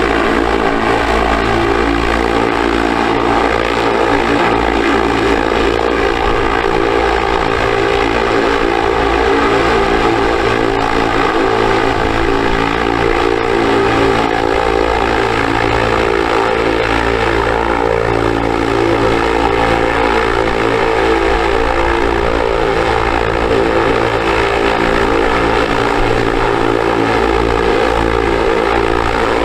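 Small electric motor spinning a propeller, running steadily at an even speed with a constant whine.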